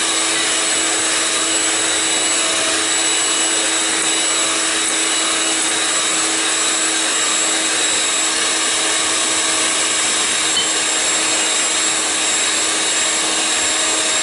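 Electric hand mixer running steadily at one speed, its beaters whisking egg-and-sugar sponge batter in a glass bowl as flour is added: an even motor whine.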